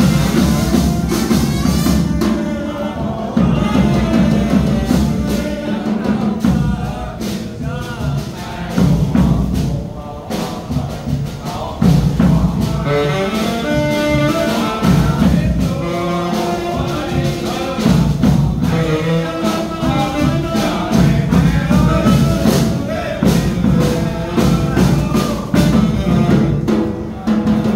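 Vietnamese kèn Tây brass band playing: saxophone and trombone carrying a held, slow melody over the beat of a bass drum and snare drum.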